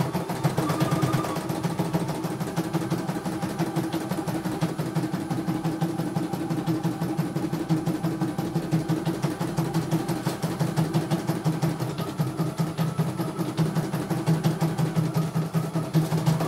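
CNY E900 computerised embroidery machine stitching, its needle bar clattering in a fast, even rhythm over a steady motor hum.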